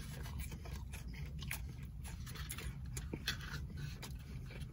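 A person biting into and chewing a mouthful of food close to the microphone, with scattered small mouth clicks over a low steady hum.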